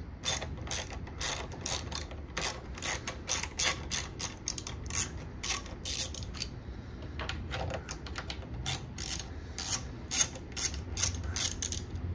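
Hand ratchet wrench clicking in quick runs of strokes as it backs out the 10 mm SRV actuator bolts on an intake manifold. There is a short pause a little past the middle.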